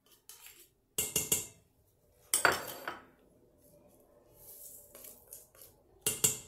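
Kitchen utensils clinking and tapping against the stainless steel inner pot of an Instant Pot as spices are tipped in: three short clusters of sharp clinks, about a second in, at about two and a half seconds (the loudest), and near the end.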